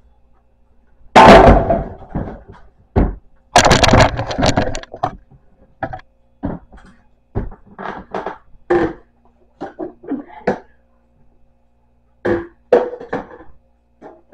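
Food-storage containers knocking and clattering as they are stacked into a wooden kitchen cupboard: a loud clatter about a second in, a longer one around four seconds, then a run of lighter knocks.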